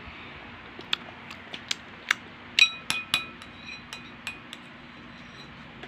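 Metal spoon clinking and tapping against a bowl while scooping baby cereal: a series of light clicks, with a few ringing taps close together a little past halfway.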